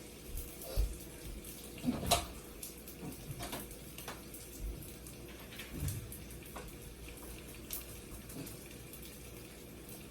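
Faint steady running water, like a tap running, with a few scattered light knocks and clicks.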